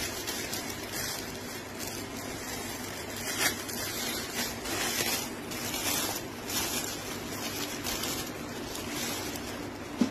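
Thin plastic packaging crinkling and rustling irregularly as hands unwrap a garment from a plastic bag and courier mailer, with a brief sharp knock near the end.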